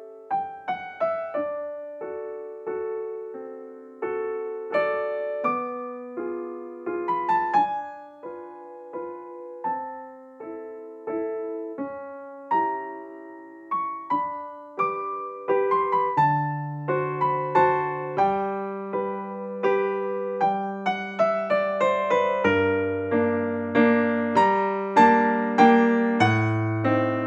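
Background piano music: a gentle melody of struck notes, with lower bass notes joining about halfway through.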